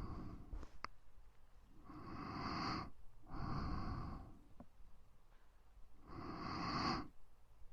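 Slow human breathing: soft breaths of about a second each, a faint one at the start, two back to back about two seconds in, and another near the end. A couple of faint clicks fall between them.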